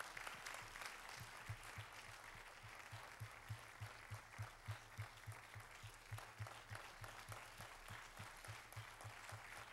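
Congregation applauding in a large hall, with a steady low thumping about three times a second underneath from about a second in.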